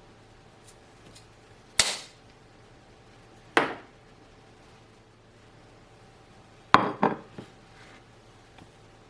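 Sharp clinks of kitchen utensils and dishes, each with a short ring. There is one about two seconds in, another about three and a half seconds in, and a quick run of three near the end.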